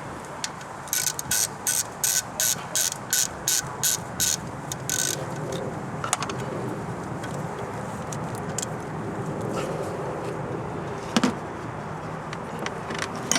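Ratchet wrench being worked in about a dozen quick, even strokes, loosening the nut that holds the battery cable to the alternator. After that come a few single metallic clicks of tools and parts.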